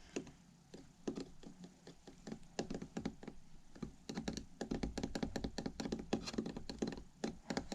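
A metal key scratching and tapping against the glass over a flip phone's rear camera lens, as a scratch test. It makes a run of small clicks and scrapes, sparse at first and coming several a second from about halfway through.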